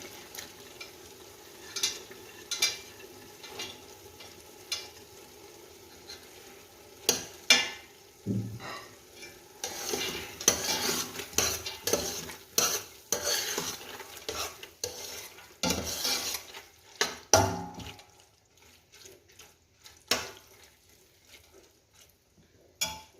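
Soaked split chickpeas being stirred into a sauce frying in a pot: a spoon scrapes and knocks irregularly against the pot over a low sizzle. The stirring thins out near the end.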